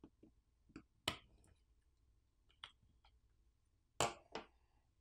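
Sharp clicks and taps of a tool and small parts against an opened smartphone's frame and circuit board during disassembly, about eight in all, the loudest just after a second in and a close pair about four seconds in.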